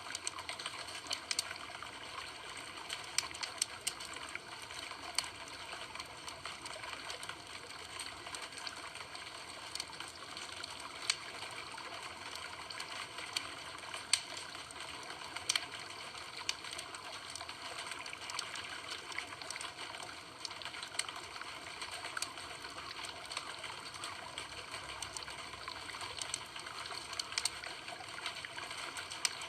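Campfire burning with a steady hiss and frequent small crackles and pops, with a few louder snaps scattered through.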